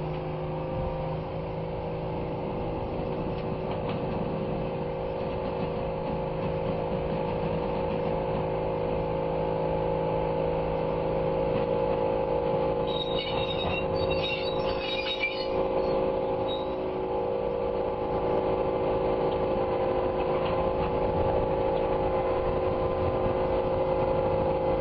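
Railroad locomotive crane's engine running at a steady drone as the crane rolls slowly along the track, with a brief burst of high squeaking about halfway through.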